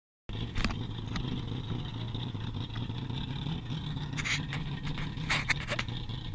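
An engine running steadily with a low hum, and a few short clicks or knocks over it.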